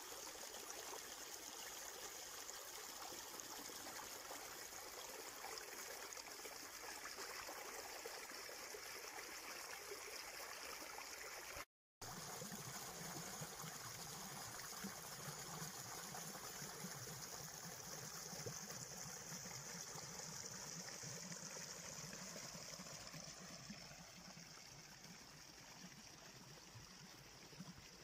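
Small mountain stream running over rocks, a steady rush of water. It cuts out for a moment partway through and grows fainter near the end.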